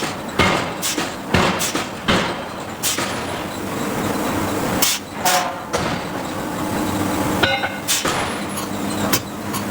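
Hydraulic forging hammer striking hot steel: a quick run of five blows in the first three seconds, then a few single blows and ringing metallic clanks over a steady machine hum.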